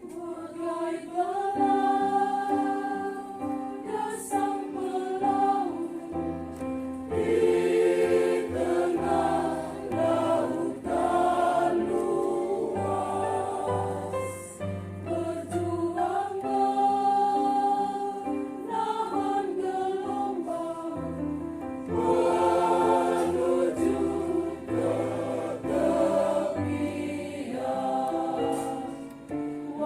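Church choir singing a hymn in parts with instrumental accompaniment; sustained low bass notes join about six seconds in.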